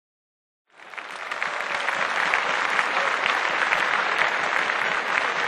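Audience applauding: a crowd's clapping fades in from silence about a second in and holds steady.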